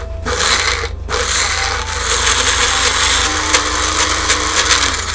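Small personal cup blender with a cross blade running on edamame and a little simmering liquid, grinding them to a paste. It gives a short burst that stops about a second in, then a longer steady run. The chef thinks the mix is a bit too thick to turn over well.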